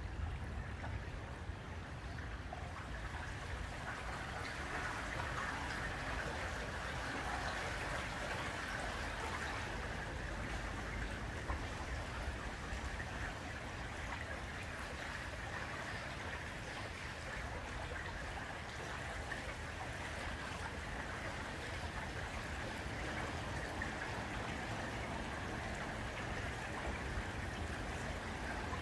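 Water rippling and trickling steadily against the hull of a small boat cruising slowly along a canal, over a low, even rumble.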